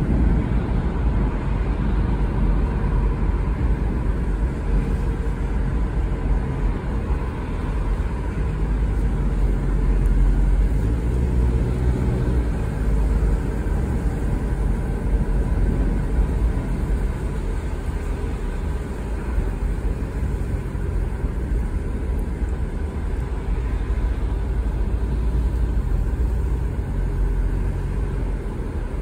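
Steady road and engine noise heard inside a car cruising on a rain-wet highway, mostly a deep rumble with tyre hiss above it.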